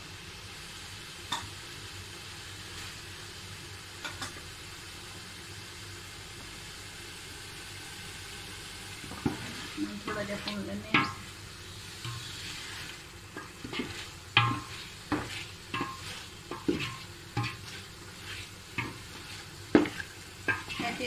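Chicken pieces sizzling as they fry in tomato-spice masala in a metal pot. This is the bhuna stage of the curry base. From about halfway through, a wooden spoon stirs and knocks irregularly against the pot over the steady sizzle.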